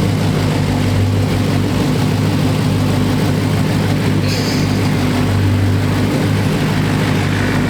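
A car engine idling, a steady low drone that holds even throughout, with a brief faint high-pitched sound about four seconds in.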